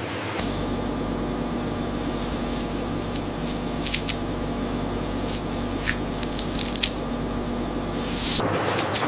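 Avocado processing machinery running with a steady hum, with wet spraying and squelching and scattered sharp clicks in the middle. Near the end the hum gives way to a louder hiss.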